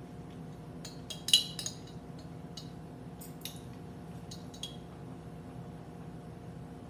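Clinks and taps of a glass mason jar mug being handled, with the straw knocking in it: a quick cluster about a second in, the loudest, then a few lighter clinks up to about five seconds in. A steady low hum underneath.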